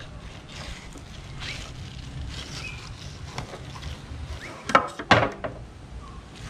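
Filleting knife working a cod fillet on a plastic cutting board, with faint scraping and two sharp knocks about five seconds in, over a low steady rumble.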